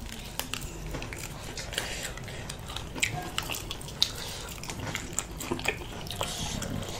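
Eating sounds of people biting and chewing chicken pieces held in their hands: irregular small clicks and wet smacks.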